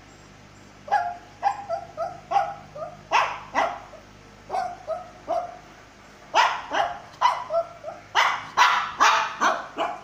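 Shih Tzu barking: over twenty short, high yaps in quick succession, in three runs separated by two brief pauses.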